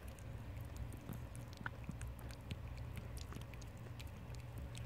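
Faint wet licking and chewing from a mother cat cleaning her newborn kitten right after its birth, heard as soft scattered clicks and smacks over a low steady hum.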